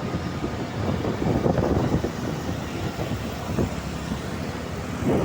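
Road vehicle engine and road noise: an uneven, low rumble of moving traffic.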